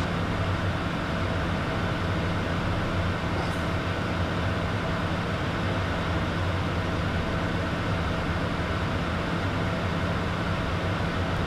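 Steady cockpit noise of a Beechcraft Premier 1A business jet in the climb: an even rush of air with a low, unchanging hum underneath.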